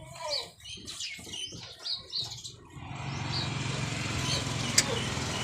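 Small birds chirping in short, repeated calls. About three seconds in, a steady motor-vehicle engine noise with a low hum comes in and keeps going.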